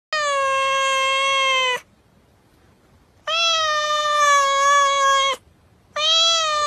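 Cat meowing: long, drawn-out meows of about two seconds each, two in full and a third starting near the end, each dipping slightly in pitch as it ends.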